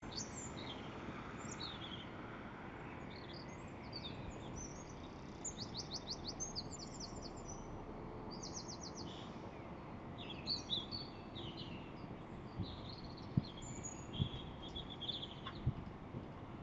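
Several small birds chirping, with a couple of rapid trills in the middle, over a steady low background noise. A few short knocks come in the second half.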